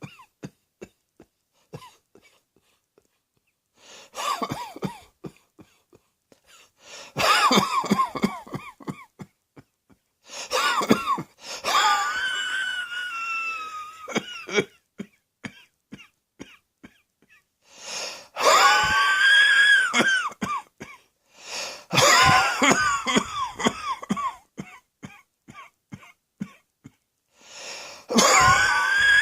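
A person coughing in repeated fits: about six bouts of rapid hacking coughs, several drawn out into a long, strained pitched sound, with short pauses between them.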